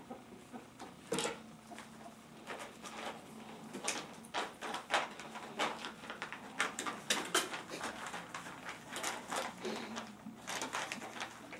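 Ferrets at play: a dense, irregular run of short clucks and knocks, busiest in the middle stretch, with scuffling among them. The clucking is the ferrets' dooking.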